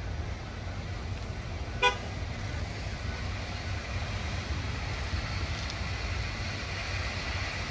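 Steady low rumble of locomotives standing in the yard, with one very short, high toot about two seconds in and a faint hiss building in the last few seconds.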